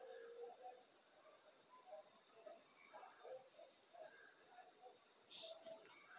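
Faint, steady high-pitched insect chirring, with scattered soft bird notes.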